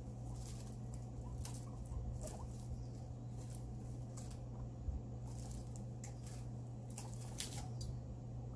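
Guinea pig eating: short crisp chewing and rustling ticks in irregular clusters, over a low steady hum.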